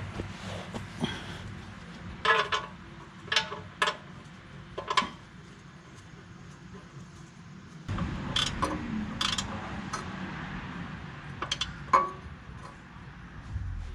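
Metal tools and parts clinking and knocking during hands-on work under the tractor: a dozen or so separate sharp clinks, a few close together, the loudest near the end.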